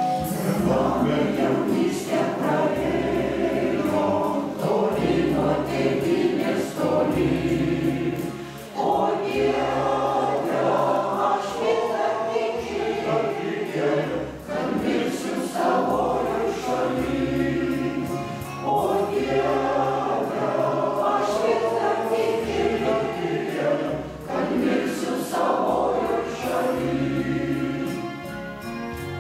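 Mixed choir singing a hymn in several parts, with electronic keyboard accompaniment holding low bass notes that change every second or two.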